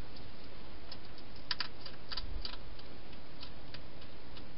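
Wild hedgehog eating from a bowl in a plastic feeding box: a run of small, crisp clicks and crunches, busiest about one and a half to two and a half seconds in, over a steady hiss.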